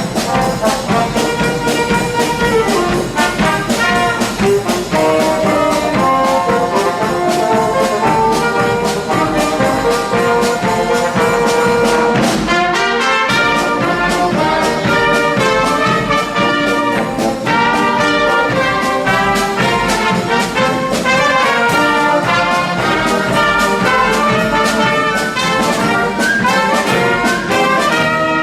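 A wind band playing a brass-led piece, trumpets and trombones carrying the tune over drums that strike sharply and often, without a break.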